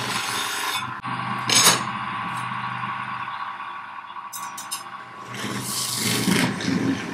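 Bench polishing motor running with a steady hum while a knife blade is buffed on its felt wheel, with a sharp clink about a second and a half in. Metal clinks and scrapes follow near the end.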